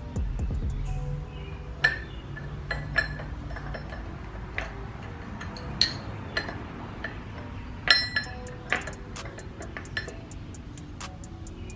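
Metal hand tool clinking and tapping against the engine parts while working on the stator and flywheel of a Yamaha Warrior 350 ATV. The clinks come irregularly, a dozen or so, the sharpest about two, three, six and eight seconds in, with quicker light ticks near the end.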